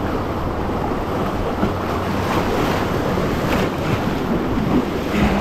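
Rushing whitewater of a river rapid around an inflatable kayak, a steady loud rush, with wind buffeting the microphone.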